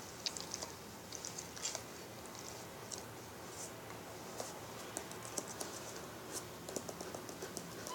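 Faint, scattered small clicks and scratching of fingers rubbing a dog's fur under its chin and on its head. The clicks grow busier in the second half.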